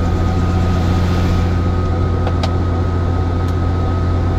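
Helicopter running steadily: a constant low drone with a thin, steady high turbine whine over it.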